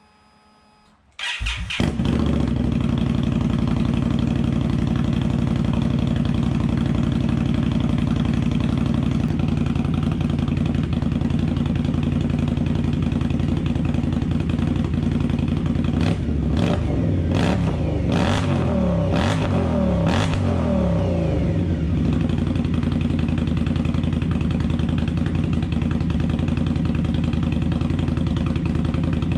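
A 2017 Indian Scout's V-twin engine, breathing through Crusher Maverick slip-on mufflers, starts just over a second in and settles into a steady idle. About halfway through it is revved a few times, the pitch rising and falling, before dropping back to idle.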